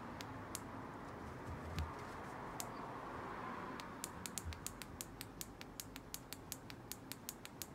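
A fast, fairly even run of sharp clicks, about six or seven a second, starting about four seconds in after a few scattered clicks.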